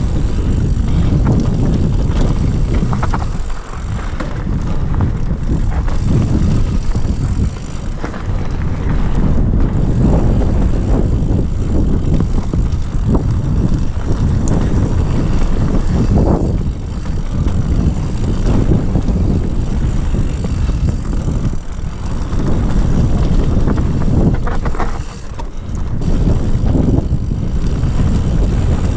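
Mountain bike descending a dirt trail at speed: wind rushing over the camera microphone and knobby tyres rolling over packed dirt, with frequent knocks and rattles from the bike over bumps.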